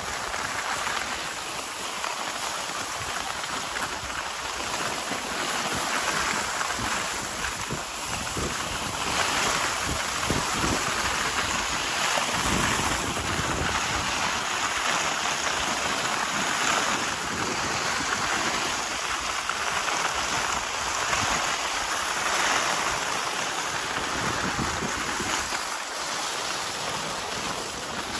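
Steady rushing noise of wind on the microphone, mixed with the hiss of cross-country skis gliding along a groomed track. Now and then a low gust buffets the microphone.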